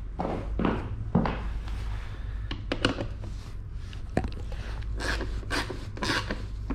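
Irregular scrapes, rubs and clicks of a hand tool and plastic bodywork as bolts are done up on a dirt bike's newly fitted rear fender.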